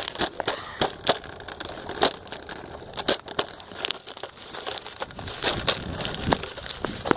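Irregular rattling, clicking and rustling from riding a kick scooter one-handed while carrying a bag.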